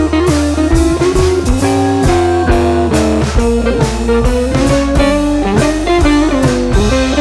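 Background music led by guitar, with a drum kit keeping a steady beat.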